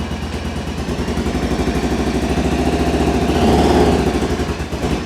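Arctic Cat Wildcat Sport 700's twin-cylinder engine running with a hard misfire, firing on only one cylinder. It gets louder for a moment about three and a half seconds in.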